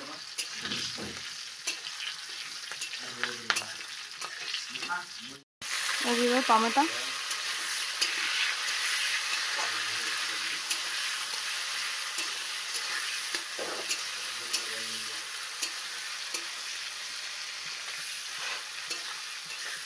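Green chillies and spices frying in hot oil in a metal kadai, sizzling steadily, with the clicks and scrapes of a spatula stirring against the pan. The sound cuts out briefly about five and a half seconds in. After that the sizzle is a little louder as tomato pieces fry.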